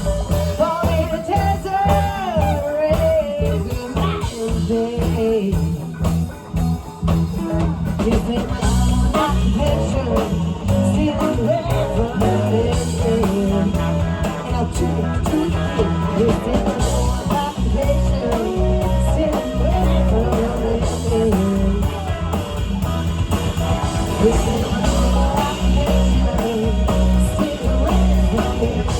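Live blues-rock band playing an extended jam: electric guitars, bass, drum kit and keyboards, with a lead line bending in pitch over a steady groove.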